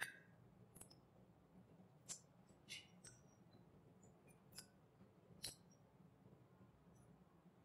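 Faint eating sounds of a hand-eaten rice and curry meal: about half a dozen short wet clicks and smacks, scattered and irregular, from fingers working curry-soaked rice and from chewing, over a faint low room hum.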